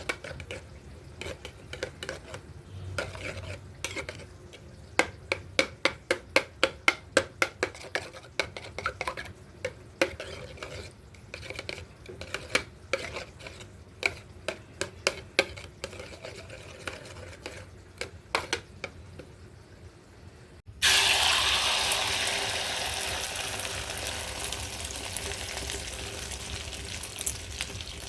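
Eggs being beaten in a bowl, a utensil clicking rapidly against the side. About two-thirds of the way in comes a sudden loud sizzle as the eggs go into hot oil, slowly dying down.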